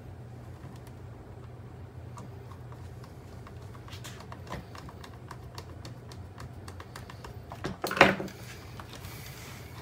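Small plastic clicks and ticks as wire leads are pressed into the holders and clips of a robot vacuum's plastic chassis, with one louder knock and rattle about eight seconds in. A low steady hum runs underneath.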